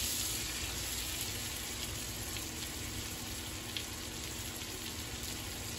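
Pork chops frying in melting butter in a cast iron skillet: a steady sizzle with a few faint crackles.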